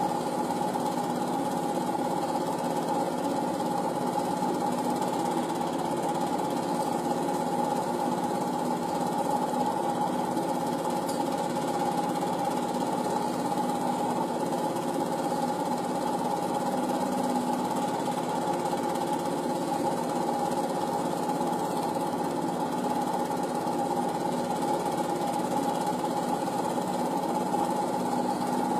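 Film projector running: a steady, rapid mechanical clatter over a motor hum.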